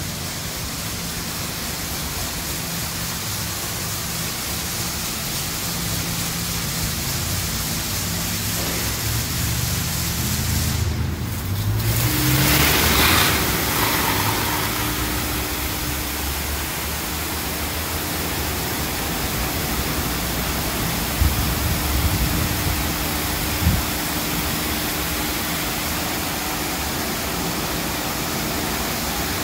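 Ryko Pulse touch-free car wash gantry spraying a car: a steady hiss of water and foam jets hitting the car and floor. About 11 seconds in the spray briefly drops away, then comes back louder with a steady hum under it, and a few short knocks sound near the end.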